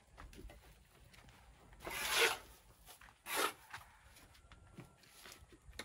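Two short rasping scrapes, about a second apart, of wet cement mortar being scraped up and worked on a concrete floor for laying hollow blocks, with faint small knocks in between.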